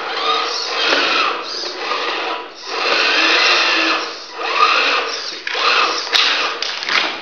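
Radio-controlled Tamiya Ford F350 High-Lift truck's electric motor and gearbox whining in bursts as it crawls over rubble. The whine rises and falls in pitch with the throttle and drops away briefly twice.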